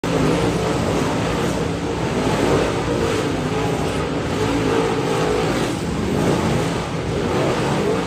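A field of dirt late model race cars racing through a turn, their V8 engines running hard and overlapping, swelling a little as the nearest cars pass close by one after another.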